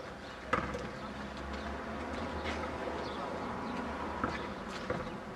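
Outdoor court ambience: a steady low rumble with a few sharp knocks, the first about half a second in and two more near the end, over faint voices.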